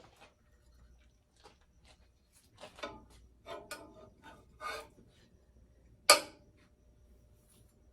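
Kitchen utensils handled: a run of light taps and scrapes, then one sharp knock about six seconds in.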